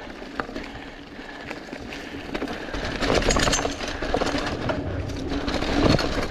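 Mountain bike rolling over a dirt trail covered in dry leaves: tyres crunching through the leaves and the bike rattling over the ground. It gets louder from about three seconds in, with a steady mechanical buzz running under it.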